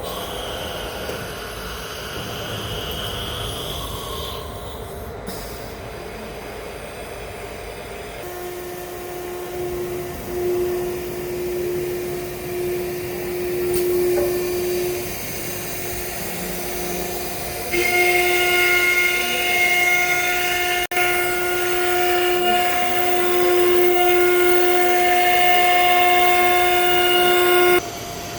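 CNC router spindle running as it engraves, with a steady whine. The whine comes in about eight seconds in, grows louder with higher tones added at about eighteen seconds, and drops away near the end.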